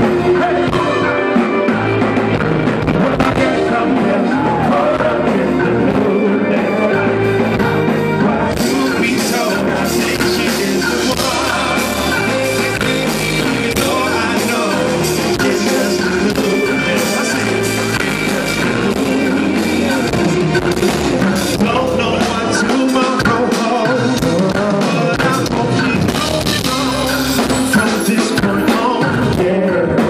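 Live R&B band with a male lead singer singing into a microphone, backed by drums and keyboards; the music grows brighter about eight seconds in.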